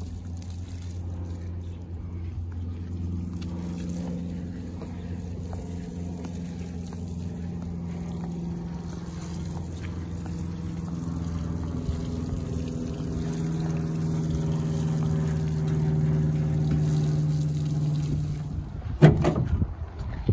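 Water pouring from a garden hose onto a horse, over a steady low engine-like hum whose pitch shifts slowly and which grows louder over the stretch. A few sharp knocks come near the end.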